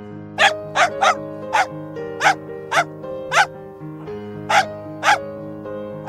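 A puppy barking in short, high yaps, about nine of them at uneven intervals, over background music of slow held chords.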